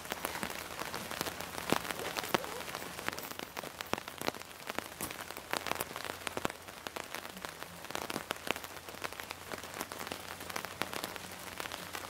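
Rain pattering on a fabric canopy overhead: a dense, irregular crackle of drops, with a few louder taps about two seconds in.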